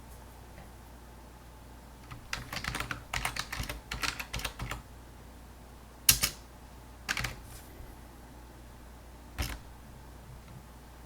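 Typing on a computer keyboard: a quick run of keystrokes, then three separate single key presses, over a faint steady low hum.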